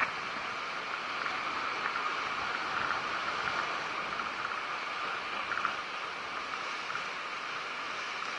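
Steady wash of the sea against a rocky shore, heard as an even hiss, with a few faint clicks.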